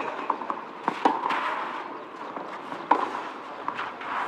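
Tennis rally on a clay court: a ball struck back and forth, with three sharp racket hits about a second and a half apart and smaller ticks between them.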